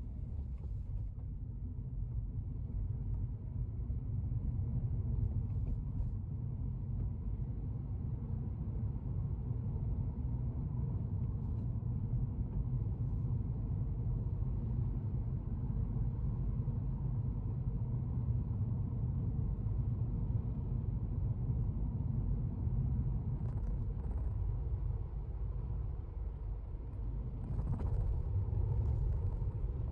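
Car being driven, heard from inside the cabin: a steady low rumble of road and engine noise.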